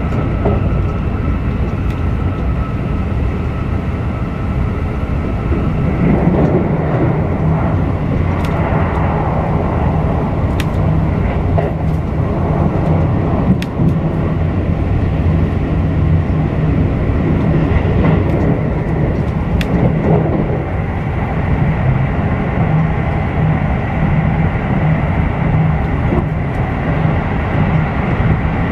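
Keisei Skyliner express train running, heard from inside the passenger cabin: a steady rumble and hum with a faint whine and a few light clicks.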